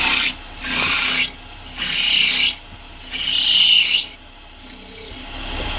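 Wood being turned on a lathe: a tool pressed against the spinning wood in four short scraping strokes with brief pauses between them, stopping about four seconds in.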